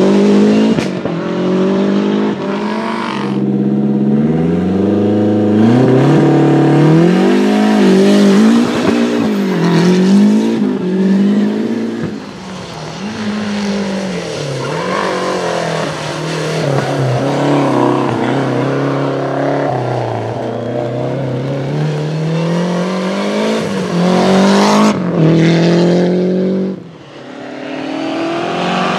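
Lancia Delta HF Integrale rally cars' turbocharged four-cylinder engines, revving hard, the pitch climbing and dropping again and again through gear changes, over several cut-together passes.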